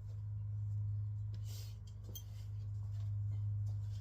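A steady low hum with a few faint, light clicks.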